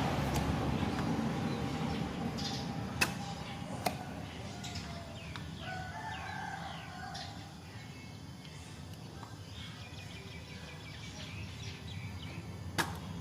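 Fowl calling, with a rooster crowing, over a low steady hum, broken by a few sharp clicks.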